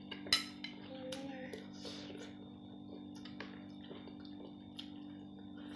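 Background music with a steady low hum, over scattered soft clicks from eating, with one sharp click about a third of a second in.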